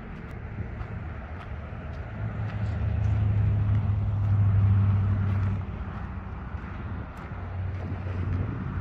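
An engine running with a steady low hum, louder from about two and a half seconds in until just past halfway, then easing back.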